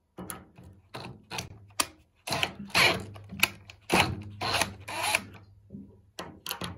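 Cordless drill with a screwdriver bit running in a series of short spurts, starting and stopping again and again, as it loosens the terminal screws on an electric water heater's lower heating element.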